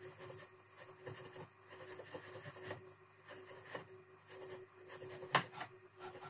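Hand tool scratching and rubbing on the finned metal compressor cylinder held in a bench vise, in irregular strokes, cleaning off its old paint, with a steady hum underneath. One sharp metallic click about five seconds in.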